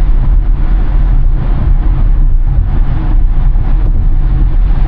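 Steady road and tyre noise heard inside a 2023 Tesla Model Y's cabin at freeway speed, a deep even rumble with no engine sound, as the car is electric.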